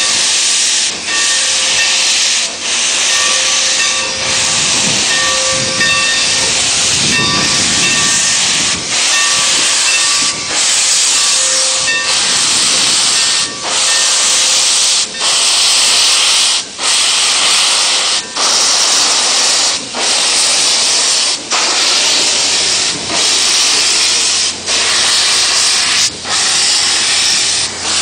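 Santa Fe 3751, a 4-8-4 steam locomotive, pulling away: a loud, continuous hiss of steam and exhaust, broken by a short dip about every one and a half seconds.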